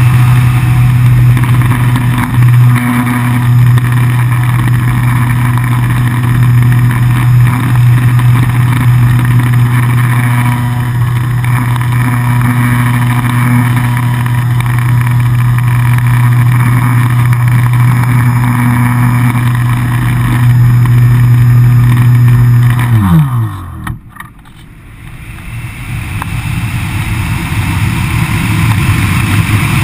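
ParkZone Radian electric glider's brushless motor and folding propeller running at a steady pitch. About 23 seconds in, the motor is cut: its tone falls away as the propeller spins down and folds. Wind rush on the airframe then swells as the glider glides.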